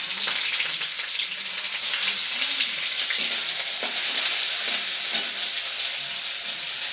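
Onions and cumin frying in hot oil: a steady sizzle with many small crackles.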